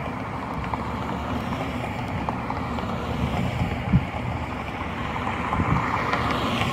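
Steady rushing noise, even across the range, with a few faint clicks and a short low thump about four seconds in.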